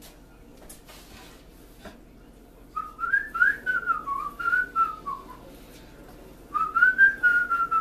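A man whistling a wavering tune in two phrases, the first starting about three seconds in and the second near the end, over short scratchy strokes of a sponge scrubbing a wooden cutting board.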